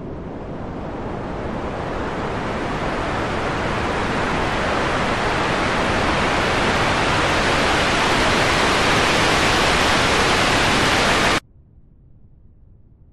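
A wash of rushing noise that swells steadily louder for about eleven seconds and then cuts off abruptly, leaving a faint low hiss.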